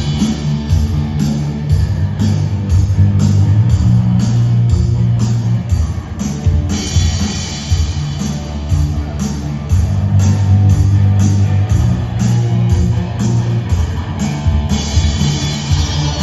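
Rock band playing live: guitar over a drum kit keeping a steady beat of about two hits a second, with a heavy low end.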